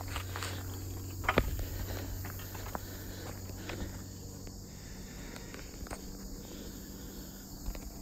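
A steady, high chorus of insects chirring, with a walker's scattered footsteps on an asphalt path.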